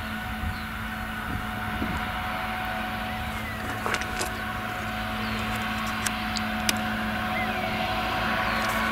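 Claas Jaguar forage harvester running at full throttle while chopping whole-crop silage, a steady engine drone with a constant hum that grows slowly louder, together with the tractor hauling the trailer alongside. A few sharp ticks about four and six seconds in.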